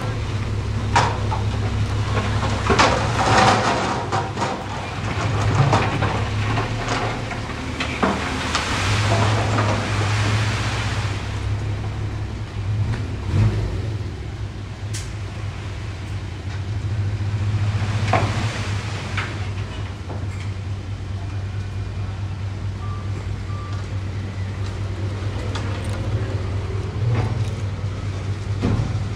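Heavy diesel construction machinery running steadily, with scattered knocks and clatter over the engine, thickest in the first ten seconds and again briefly about eighteen seconds in.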